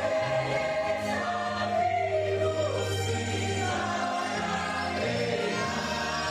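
Church choir singing a gospel hymn in long held notes, with a steady low sustained accompaniment underneath.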